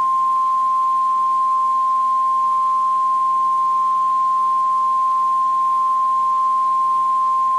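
NOAA Weather Radio warning alarm tone: a single steady 1050 Hz tone held for about eight seconds that cuts off abruptly near the end. It marks the start of a severe thunderstorm warning broadcast.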